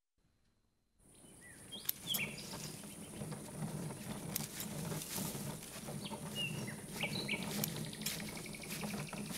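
Cartoon outdoor ambience: scattered short bird chirps over a steady high hiss, fading in after about a second of silence, with a few small clicks.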